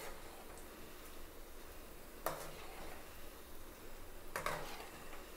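Ragi-flour spinach pakodi deep-frying in oil in a metal kadai, a faint steady sizzle, while a metal spoon stirs them and scrapes against the pan twice, about two seconds in and again two seconds later.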